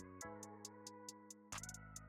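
Soft background music: held synthesizer-like chords with a light ticking beat.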